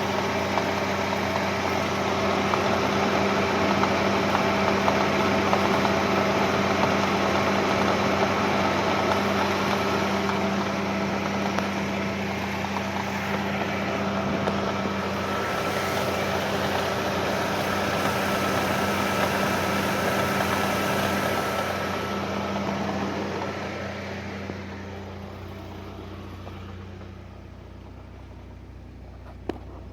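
ZMZ-409 inline-four petrol engine idling steadily with a knock, which appeared after the timing chain was replaced. The sound fades away over the last several seconds.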